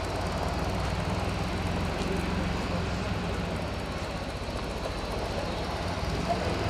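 Avro Anson's twin piston engines running steadily, an even low drone with no change in pitch.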